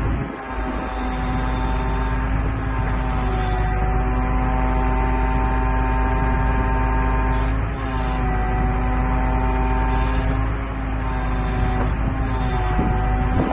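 Iveco truck's diesel engine running steadily to drive the hydraulic pump of its loader crane while the crane's grab is moved. It gives an even, droning hum that shifts slightly about eight seconds in.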